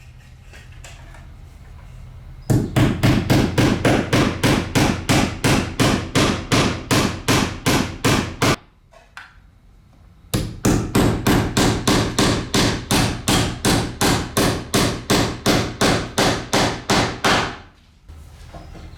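Rapid, evenly paced hammer blows, about four a second, in two long runs with a pause of about two seconds between them.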